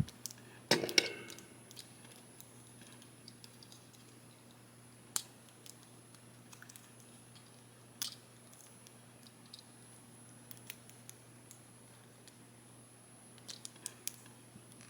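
Small plastic clicks and taps of an action figure and its Matrix accessory being handled as the Matrix is fitted into the figure's hands: scattered single clicks, with a few sharper ones about five and eight seconds in and a quick cluster near the end, over a faint steady hum.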